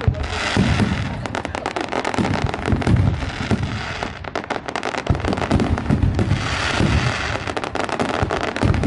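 Fireworks going off: a steady run of crackling pops with heavier booms every second or so.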